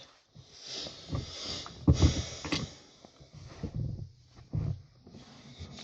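Irregular knocks, clicks and rustling from handling car interior trim, screws and a screwdriver during disassembly, with a louder knock about two seconds in.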